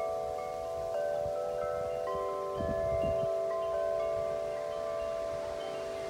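Wind chime ringing in the wind, many long notes sounding and overlapping. A gust of wind rumbles on the microphone about two and a half seconds in.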